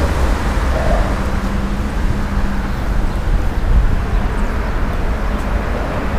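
Steady outdoor rumble of road traffic with wind noise on the microphone, a faint steady hum running underneath.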